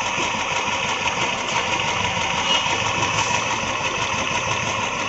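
Royal Enfield UCE Electra's single-cylinder engine idling steadily, with the abnormal engine noise that the bike was brought in to have fixed.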